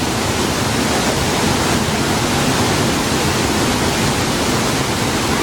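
Waterfall: loud, steady rush of falling water.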